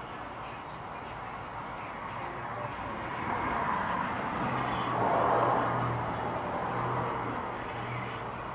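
A vehicle passing by: its noise swells to a peak about halfway through and fades away, over steady insect chirping.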